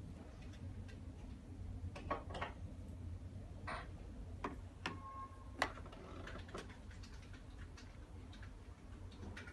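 Scattered light clicks and taps as a phone is handled and set down on a robot vacuum's plastic top. There is a short beep about halfway through, over a low steady hum.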